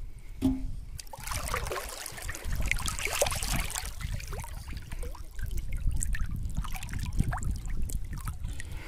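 River water sloshing, splashing and trickling as a person wades through it pushing a metal basin, busiest in the first few seconds, over a steady low rumble.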